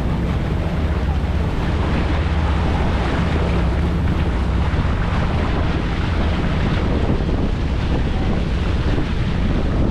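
Wind buffeting the microphone over the steady low drone of a passenger boat's engine and the rush of water along the hull.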